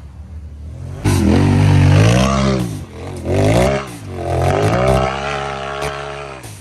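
Side-by-side UTV engine revving up and down in repeated bursts, starting suddenly about a second in, with a few sharp knocks and scrapes as it crawls over rocks.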